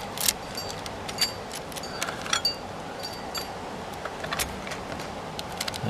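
Irregular small metallic clicks and clinks, some with a brief high ring, from a steel bicycle U-lock being handled.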